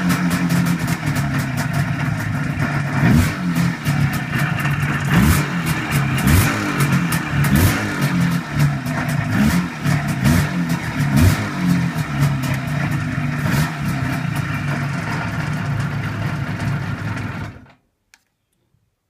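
IZh Jupiter-5 two-stroke twin motorcycle engine idling with repeated short throttle blips, each a quick rise and fall in pitch. Near the end the engine is switched off with the ignition key and stops abruptly, followed by a small click.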